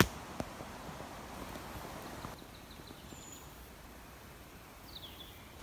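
Quiet outdoor forest ambience: a sharp click at the start, then a faint steady hiss. Near the end come a couple of short, high bird chirps, one of them falling in pitch.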